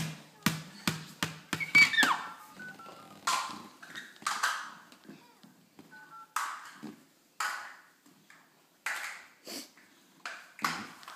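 Children's electronic toys sounding off in a string of short beeps, tones and snippets of jingle, with a falling electronic glide about two seconds in and sharp clacks of hard plastic in between.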